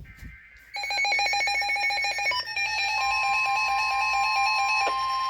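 Weather radio receiver sounding an incoming warning. A brief faint data burst (the SAME header) comes first, then a bit under a second in the radio's own rapid electronic alarm beeping starts. About three seconds in, the steady NOAA Weather Radio warning alarm tone joins the beeping.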